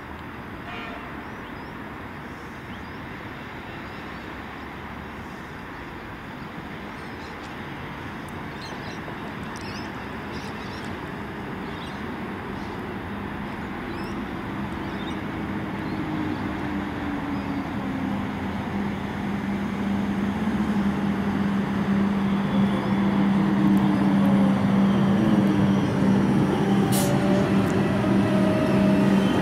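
Comeng electric multiple unit train approaching and pulling into the station, growing steadily louder. From about halfway its motor whine falls in pitch as it brakes, and a steady hum sets in over the last third.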